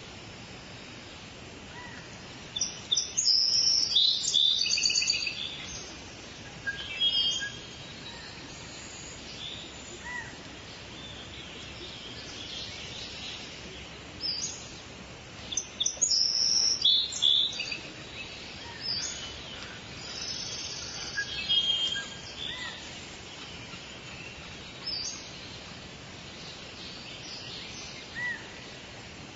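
Songbirds singing in a forest, with loud bouts of quick, high trilled and chirping song a few seconds in and again around the middle. A short, thin call note repeats every few seconds over a steady background hiss.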